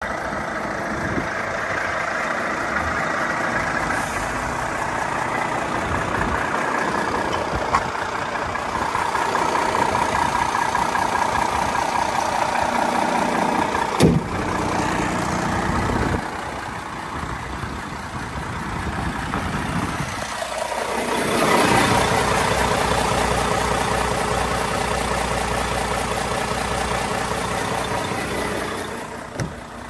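Renault T 480 truck's 13-litre straight-six diesel idling steadily, louder and deeper from about two-thirds of the way through. A single sharp knock about halfway through, as a hand touches the cab's front panel.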